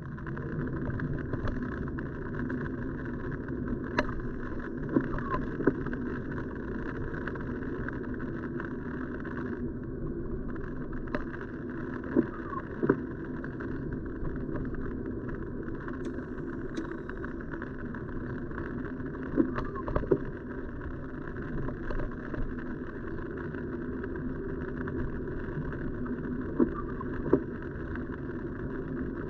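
A car driving on a wet road, heard from inside the cabin: steady engine and tyre noise, with a few sharp taps scattered through it.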